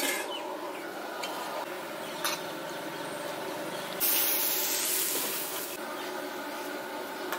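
Hot oil sizzling as medu vadas deep-fry in a kadai, with two light clicks in the first half. A louder hiss starts suddenly about four seconds in and fades after nearly two seconds.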